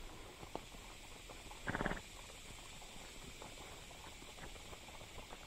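Horses' hooves walking on a dirt trail, soft irregular footfalls, with one brief louder burst of noise just under two seconds in.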